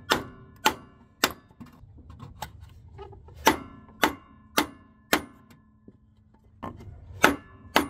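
About eleven sharp wooden knocks, in runs of three or four roughly half a second apart with short pauses between: a 2x4 block of wood being struck to tap a new harmonic balancer pulley the last fraction of an inch onto a Jeep XJ's crankshaft.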